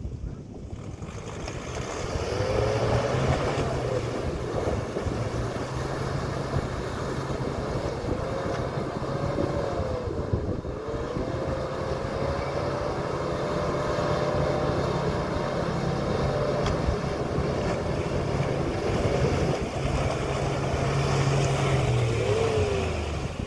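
Force Gurkha 4x4's diesel engine pulling under load through deep mud, revs climbing in the first two seconds and then held high, dipping and rising a few times, and easing off near the end.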